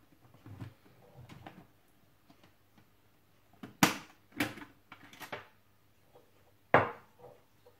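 Plastic clicks and snaps from an LS2 motorcycle helmet's visor being worked free of its side pivot mounts, with softer handling knocks between. The sharpest snaps come about four seconds in and again about seven seconds in.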